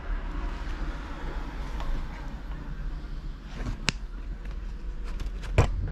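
A Michelin Pro4 Service Course folding road-bike tyre being flexed and handled, rubber and casing rubbing against the hands, with two sharp clicks in the second half over a steady low rumble.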